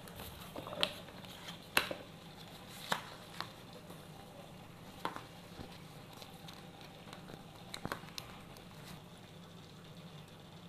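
Light handling of a paper sticker sheet and plastic toy track parts while stickers are peeled and pressed on: a few soft ticks and rustles, spaced a second or more apart, over a faint steady hum.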